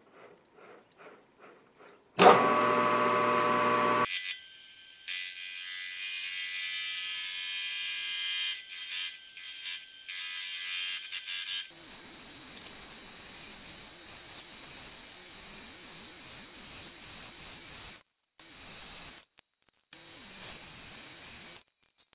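Grizzly G0750G metal lathe running, with a tool cutting a rough forged steel blank held in the four-jaw chuck. A few light clicks come first as the chuck jaws are tightened. The machine starts abruptly about two seconds in, and the cutting sound stops sharply a few times near the end.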